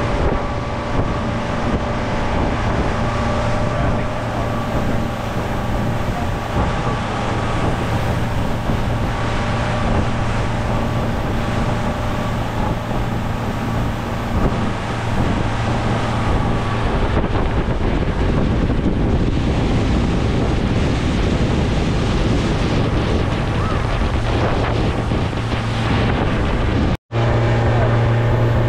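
Tour boat's engine running steadily under way, a low hum with wind buffeting the microphone. The sound drops out for a moment near the end and comes back with a louder hum.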